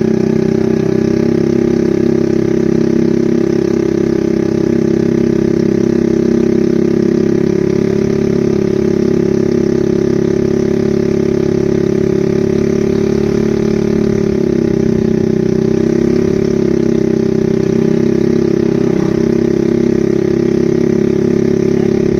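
An engine running steadily at an even speed, with a slight waver in pitch about two-thirds of the way through.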